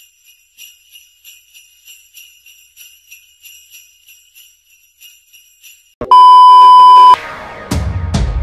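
Jingle bells shaken in a steady rhythm, about three shakes a second. About six seconds in, a loud steady beep lasting about a second cuts in, and electronic music starts near the end.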